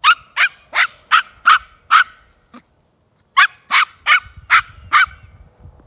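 Small dog yapping at a goat as it tries to herd it: a run of about six quick, high-pitched barks, a second's pause, then about five more.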